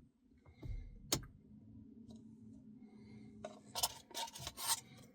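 Close-miked eating sounds from a cup of ice cream: a sharp click about a second in, then a quick run of clicks and scrapes near the end.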